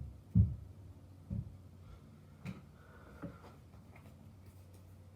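A few dull, low thumps, fading in strength, over a faint steady hum.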